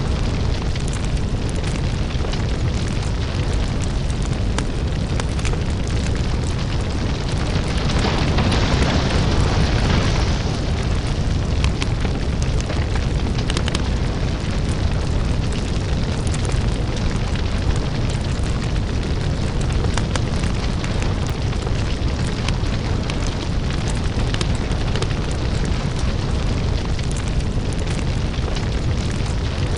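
Crackling lava-fire ambience: a steady deep rumble with dense crackles and pops, and a louder hissing rush about eight to ten seconds in.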